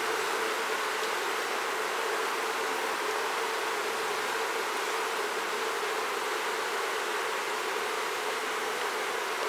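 Steady hum of many honey bees from an open colony, buzzing evenly without a break. The beekeeper hears it as the roar of a queenless colony, not the sound of a normal hive.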